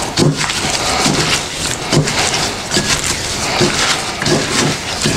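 A disposable-gloved hand tossing seasoned raw salmon pieces in a glass bowl: steady rustling and wet squishing, with soft knocks repeating throughout.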